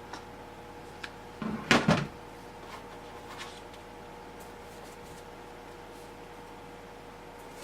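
A short clatter of parts being handled and set down on a work surface about a second and a half in, with a few light clicks before and after, over a faint steady hum.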